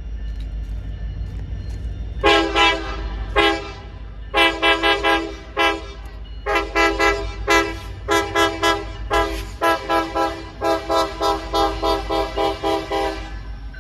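Norfolk Southern diesel locomotive's air horn sounding a long string of short blasts, with a few longer ones, starting about two seconds in and stopping shortly before the end. The low rumble of the approaching freight train runs beneath.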